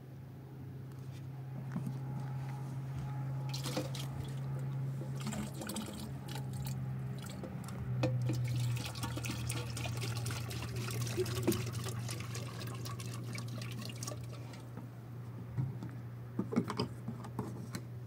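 Water pouring and splashing over a steady low hum.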